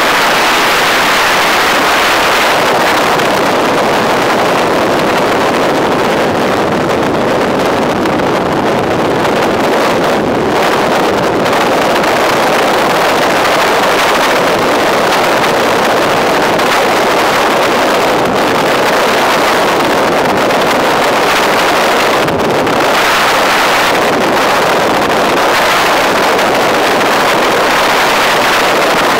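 Vessel running at speed over water: a loud, steady rush of water and engine noise, with wind on the microphone.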